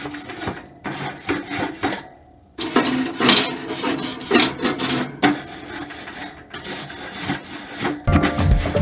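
Metal grill brush scrubbing a hot barbecue grill grate, a rasping scrape in bursts of strokes with short pauses, loosening stuck-on charred bits while the grate is still hot. Music comes in near the end.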